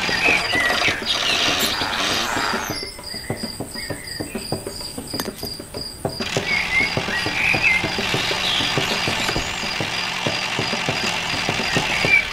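Birds chirping over a pulsing, insect-like high trill, with fast, irregular ticking and clatter from the model tractor's small geared motor running.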